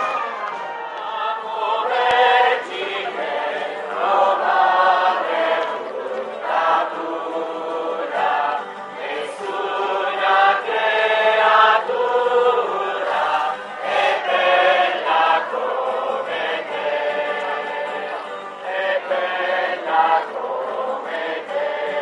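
Crowd of people singing a hymn together, many voices in chorus with the melody moving through sung phrases.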